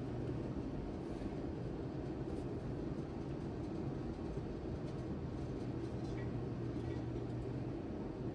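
Steady low hum with an even background haze and a few faint light ticks.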